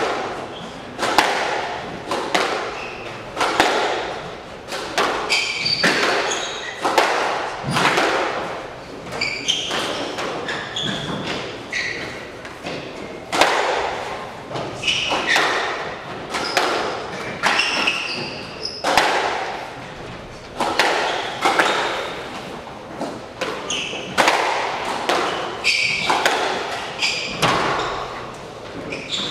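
Squash rally: the ball is struck by racquets and hits the walls in sharp, echoing thuds every half second to a second, with short squeaks of shoes on the wooden court floor between the shots.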